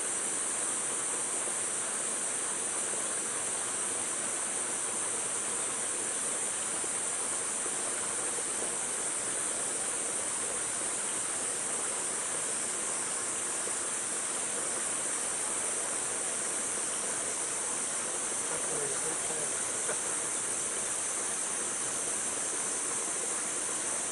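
Steady, unbroken high-pitched insect chorus, such as cicadas or crickets, over an even background hiss.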